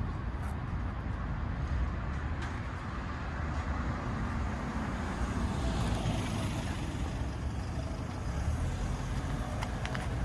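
Road traffic: a steady low rumble, with a motor vehicle swelling past about six seconds in.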